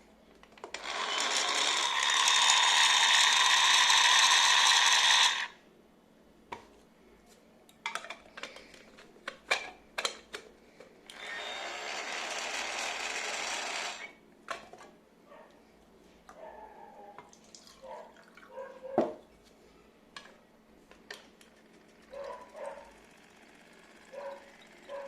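Kitchen blender motor running at full speed for about five seconds, stopping, then running again more quietly for about three seconds. Sharp clicks and knocks fall between and after the two runs.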